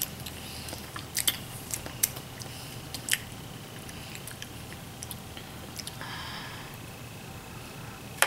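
Wet chewing and squishing of lemon slices being bitten, sucked and worked by hand, with scattered sharp little clicks.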